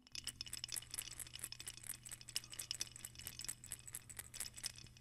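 Cashaloma sonaja and ocarina-sonaja shaken together as rattles, a quiet, dense, fast run of small dry clicks with no pitched ocarina tone.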